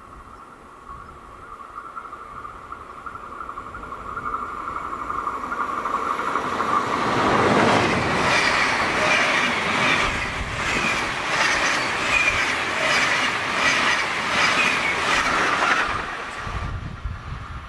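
SBB locomotive-hauled passenger train of single-deck coaches approaching and passing at speed. A steady high hum from the track grows steadily louder, then the coaches go by with a regular beat of wheelsets over the rails, about one and a half a second. The sound drops away quickly near the end as the train clears.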